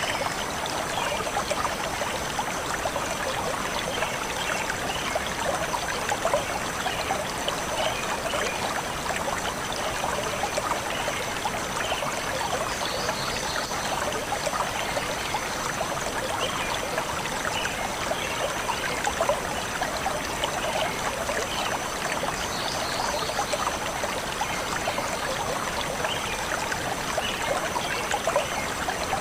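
Small stream flowing steadily over stones, a continuous trickling and babbling of water.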